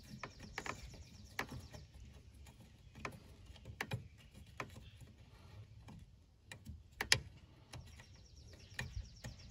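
Irregular small plastic clicks and taps of an electrical wiring connector being handled and pushed onto a car's throttle plug. The sharpest click comes about seven seconds in.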